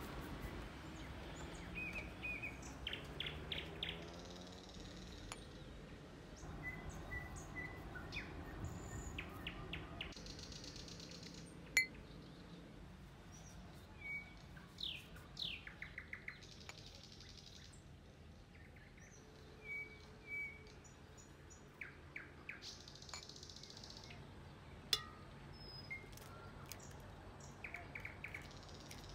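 Birds chirping and calling, short chirps and quick sweeping notes scattered throughout, with a few sharp clicks and taps, the loudest about twelve seconds in and near the end.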